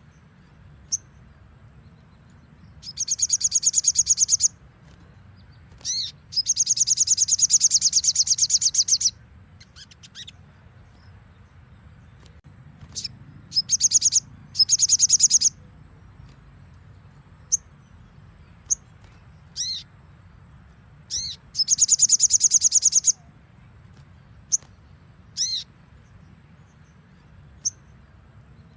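Sogon, a small sunbird-like songbird, singing: four long, rapid high trills (its 'nembak' bursts) broken by short down-swept calls and single high pips.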